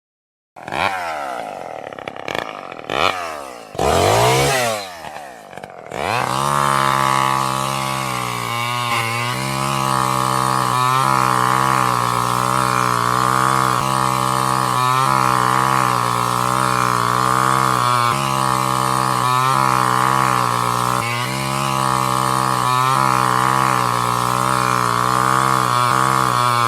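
Chainsaw revving up and down several times in the first few seconds, then running steadily at high speed. The pitch dips briefly every second or two.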